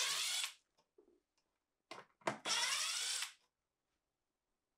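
Milwaukee Fuel cordless driver with a 1/4-inch nut driver bit spinning out two screws: a short run ending about half a second in, then a second run about a second long starting just after two seconds, its motor whine gliding in pitch.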